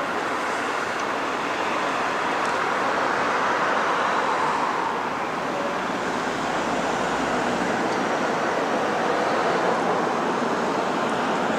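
Steady road traffic noise from vehicles driving past at speed, mostly tyre and engine noise, swelling as a vehicle goes by about four seconds in.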